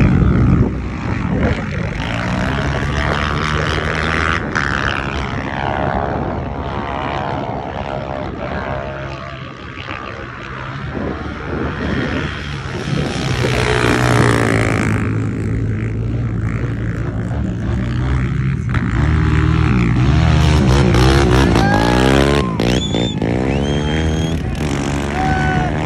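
Quad ATV engines running and revving under load as they climb a sand dune, the engine pitch rising and falling several times.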